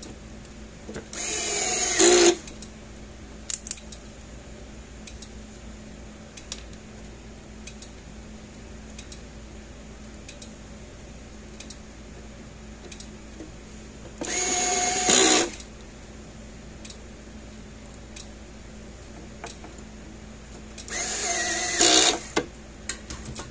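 Cordless power screwdriver run in three short bursts of about a second each, near the start, about halfway and near the end, driving screws during reassembly. Faint handling clicks fall between the bursts.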